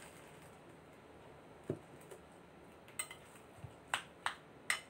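Metal cutlery and kitchen things knocking and clinking on a bowl and tabletop: a soft knock about a second and a half in, then four sharp clicks over the last two seconds.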